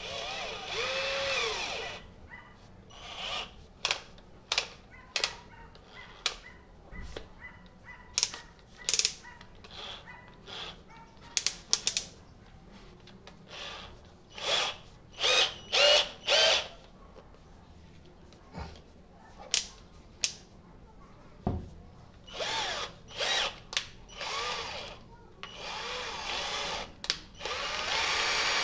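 Ingco cordless drill's motor run in short trigger pulses: many brief whirs, with a longer run at the start and another near the end, while the keyless chuck is gripped by hand to tighten it on a screwdriver bit.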